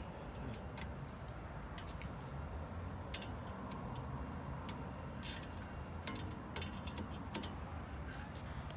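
Stubby 14 mm ratchet wrench clicking as it works loose the rear brake caliper bracket bolts: scattered sharp clicks in short bursts, over a low steady rumble.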